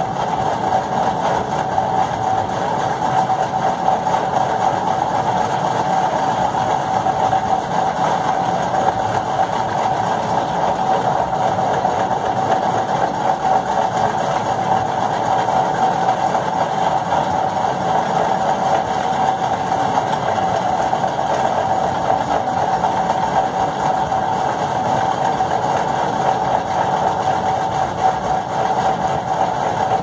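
Steady machine drone with a constant mid-pitched whine, unchanging throughout.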